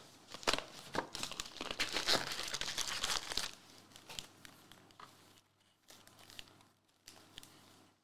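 Foil-wrapped Panini NBA Hoops trading-card packs crinkling as they are handled and shuffled by hand. The crinkling is dense for the first few seconds, then drops to quieter, occasional rustles.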